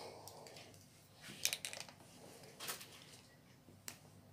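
Faint scattered clicks and taps from handling a hand grip strengthener while its tension is adjusted: a cluster about a second and a half in, another tap a little later and a sharper click near the end.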